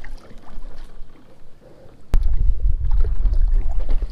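Faint handling sounds, then a sharp click about halfway through, followed by a loud low rumble of wind buffeting an action-camera microphone.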